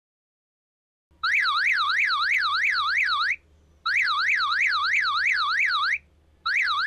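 Fire-Boltt Artillery smartwatch's SOS alarm siren sounding loudly from its small speaker, starting about a second in: a fast warble that rises and falls about three times a second, in bursts of about two seconds with short gaps between them.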